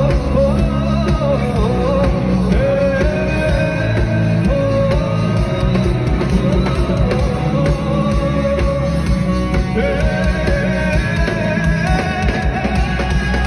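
Live band playing a Hindi pop song over a loud PA, with drums, bass and guitar, while a male singer holds long, wavering notes.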